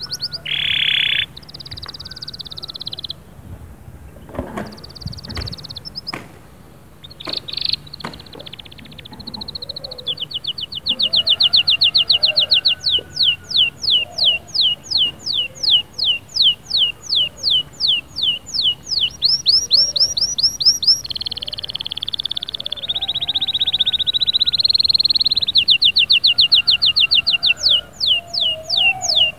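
Domestic canary singing: a varied song of repeated-note tours, with long runs of quick sweeping notes at about four or five a second and a dense rolling trill about two-thirds of the way through.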